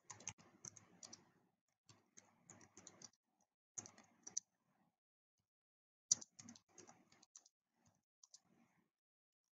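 Faint typing on a computer keyboard: short runs of key clicks, with a pause of about a second and a half just past the middle.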